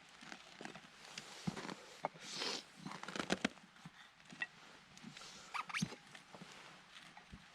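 A dog moving about close by: scattered light clicks and taps with a short rustle about two seconds in.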